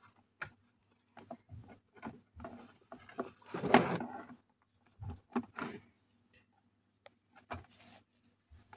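Scattered small taps, rubs and rustles from a baby moving and handling things right against the phone, with a louder rustle about four seconds in.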